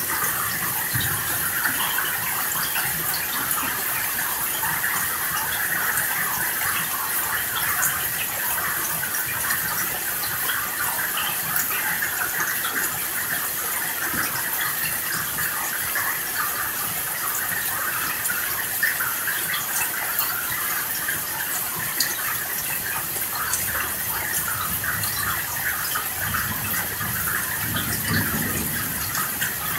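Steady rain: a dense hiss of falling drops with scattered sharp drop ticks, and a low rumble swelling near the end.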